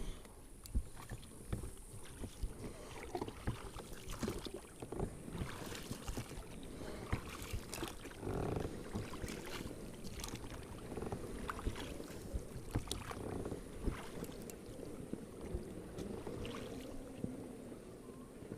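Scattered knocks and clicks of handling in a small fishing boat over a steady low wash, with a louder stretch of rustling about eight seconds in.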